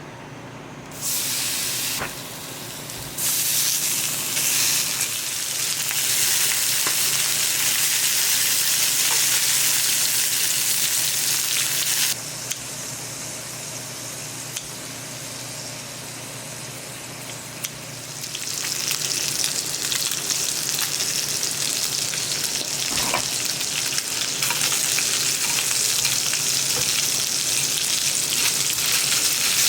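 Food frying and sizzling in a hot pan: a dense crackling hiss that starts about a second in, eases off for a few seconds midway, then comes back loud.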